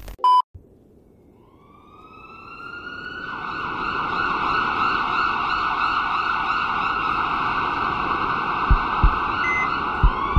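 A short electronic glitch blip, then a siren wail rising in and holding steady. Near the end deep paired thumps like a heartbeat come in, with a short high beep.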